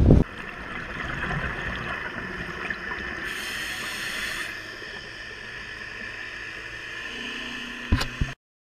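Underwater hiss picked up through a camera's waterproof housing, with a louder rush of scuba exhaust bubbles lasting about a second, around three seconds in. A couple of sharp knocks come near the end, and then the sound cuts off suddenly.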